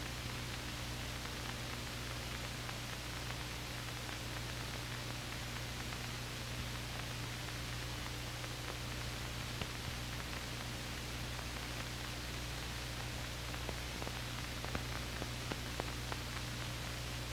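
Steady hiss and low hum of an old film soundtrack, with a few faint clicks in the second half.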